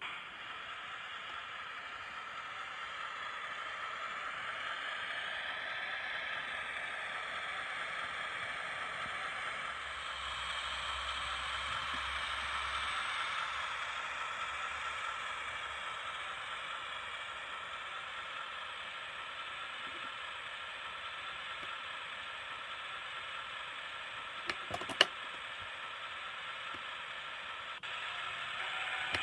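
Recorded DE10 diesel-hydraulic locomotive engine sound played by a model train's DCC sound decoder through a small 28 mm speaker, the engine note drifting slowly in pitch as the model runs. Two sharp clicks come near the end.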